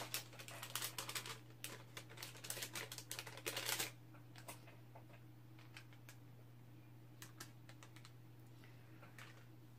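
Quick, light crinkling and clicking of plastic and paper handled with gloved hands, busy for about the first four seconds and then only a few scattered clicks, over a steady low hum.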